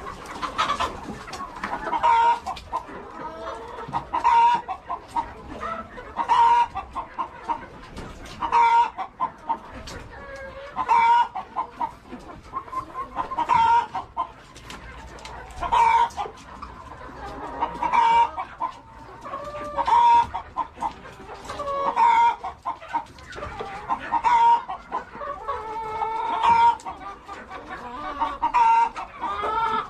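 Hens clucking, a run of short clucks building to a louder drawn-out cackle, repeated about every two seconds.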